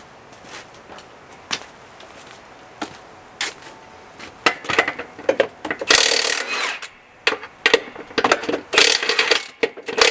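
Scattered metal clicks and knocks from hand work on a tractor wheel. Then two loud bursts of about a second each from a power tool, about halfway through and again near the end.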